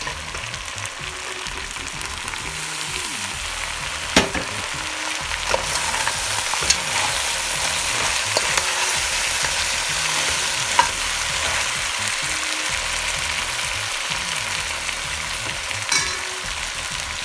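Goat meat sizzling in hot coconut oil in a Dutch pot as chopped peppers, onion and thyme are stirred in, a steady frying hiss. A few sharp clinks of the stirring utensil against the pot break through it.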